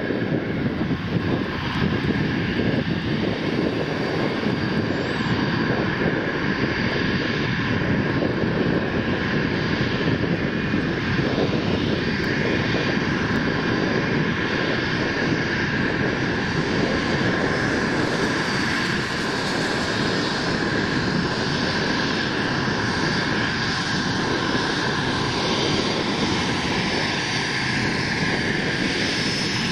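Twin rear-mounted turbofan engines of a Gulfstream business jet running at taxi power: a steady jet rumble with a high, even whine over it, growing slightly brighter as the jet comes closer.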